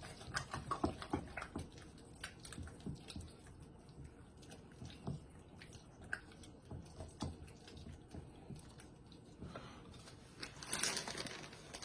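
Food preparation sounds: irregular soft taps, clicks and squishes as shredded cheddar cheese is added to a thick cream-cheese dip, then a plastic bag crinkling near the end.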